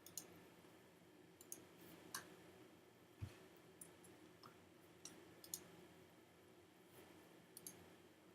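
Computer mouse clicking: single sharp clicks at irregular intervals, about ten in all, one of them about three seconds in with a soft low thump. A faint steady hum runs underneath.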